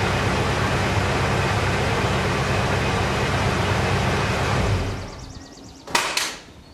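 Ford 5.0-litre (302) V8 idling steadily through the exhaust, then switched off about four and a half seconds in and dying away. About a second later come two sharp clunks close together.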